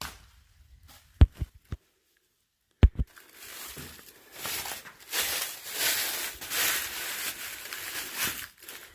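A few short, sharp thumps, then a stretch of uneven rustling and crunching like footsteps through dry leaves and brush.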